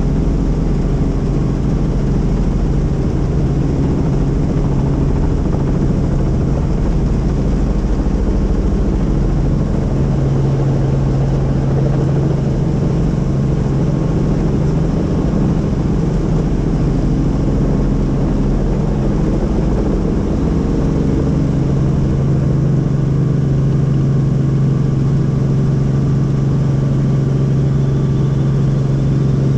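Tour helicopter in flight: a steady low drone of rotor and engine, slightly stronger from about ten seconds in.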